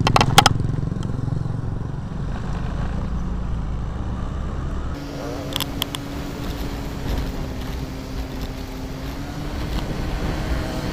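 Motorcycle engine running while riding, with heavy wind rumble on the microphone; a steady engine hum comes through in the second half, and a few sharp clicks sound near the start and about halfway.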